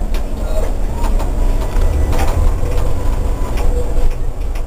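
A tram running along street track, heard from inside the moving car: a steady, loud low rumble with a few faint clicks.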